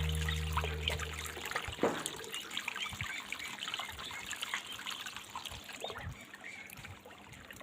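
A held low musical chord fades out in the first second and a half, leaving water trickling and lightly splashing with small irregular patters, slowly growing quieter.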